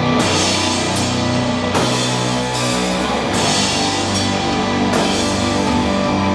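Doom metal band playing live: heavy distorted guitars and bass holding low sustained chords over a slow drum beat, with cymbal crashes landing at an even pace of roughly one a second.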